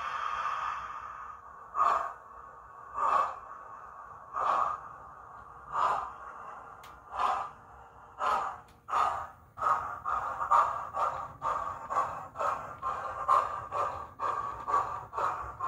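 Model steam locomotive's DCC sound decoder, heard through the loco's speaker, playing steam sounds. A hiss of steam dies away in the first second. Then slow exhaust chuffs, about one every second and a half, quicken to around three a second as the train gets under way.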